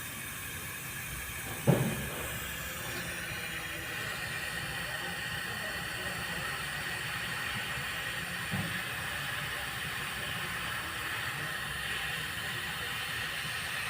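Engine running with a steady hiss and a misfire that the owner puts down to a collapsed valve lifter and a worn camshaft on cylinder 5. There is a sharp thump about two seconds in and a softer one near the middle.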